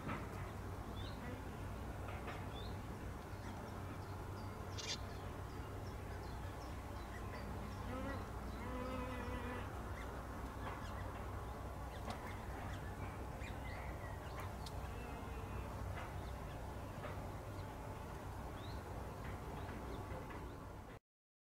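Outdoor background with a steady low hum and scattered short bird chirps, and a longer wavering call about eight seconds in. The sound cuts off abruptly just before the end.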